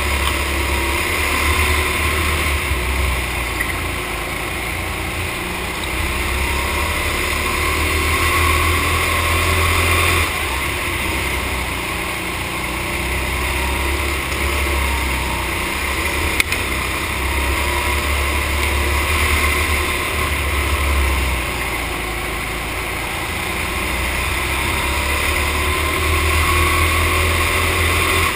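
Go-kart engine running at racing speed. Its pitch rises and falls every few seconds as the kart accelerates and eases off through the laps, over a low rumble that comes and goes. There is a single sharp knock about sixteen seconds in.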